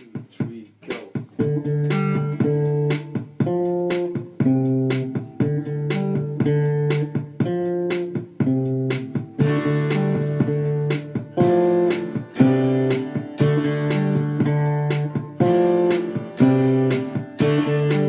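Steel-string acoustic guitar playing a picked and strummed melody with held low notes, coming in about a second in, over a steady drum-machine beat.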